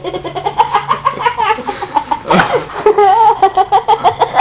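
Hard, uncontrolled laughter, a quick run of short pitched bursts that goes on almost without a break, over a faint steady low hum.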